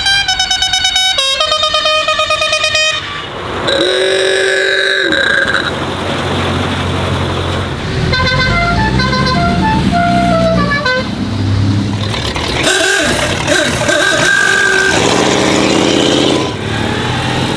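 A string of car horns sounding one after another over running engines. It opens with a fast-pulsing horn switching between two pitches, then comes one long steady blast. A musical horn plays a quick tune of short notes at different pitches about eight seconds in, and further horn notes follow near the end.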